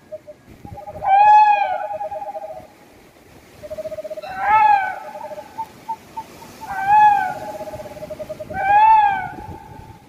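Owl calls in the woods at night: four loud, rising-then-falling wailing calls about two to three seconds apart, with fast, even trills on a lower pitch running between them.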